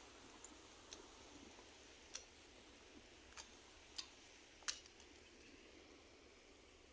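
Near silence with about six faint, sharp clicks at irregular intervals, the loudest about two thirds of the way in.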